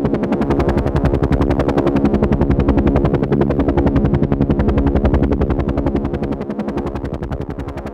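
Helicopter rotor chopping in a fast, even pulse, with the engine's hum beneath it. It gradually fades over the last couple of seconds.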